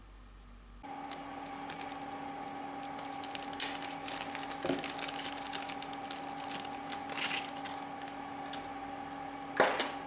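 Hands rustling and crinkling a small plastic bag and handling a small plastic battery charger, with scattered clicks and a sharp knock near the end, the loudest sound. Under it runs a steady two-tone hum that starts about a second in.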